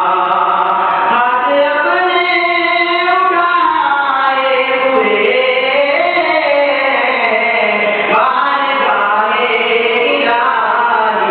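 Solo young male voice chanting a melodic Islamic devotional recitation into a microphone, long held notes sliding slowly up and down in pitch.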